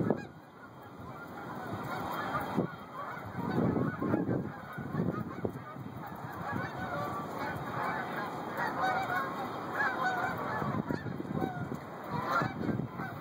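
A large flock of geese honking as it flies overhead: many overlapping honks that grow thicker from about halfway through. Low rumbling comes and goes underneath.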